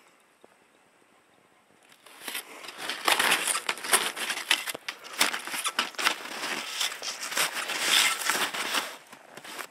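Quiet at first; then, about two seconds in, skis start sliding and crunching over snow down a slope, a rough hiss broken by many small crackles that stops shortly before the end.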